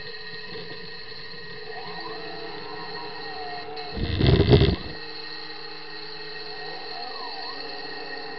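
Scale model CAT 5110B excavator's motors and hydraulics whining steadily, with tones gliding up and down as the boom and arm move. About four seconds in, the bucket strikes and scrapes the floor for about a second, the loudest sound.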